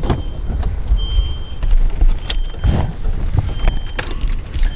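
A short, high electronic beep repeats about every second and a half inside the Golf 3's cabin. Under it runs a low, steady rumble, with several sharp knocks and clicks as someone moves into the car.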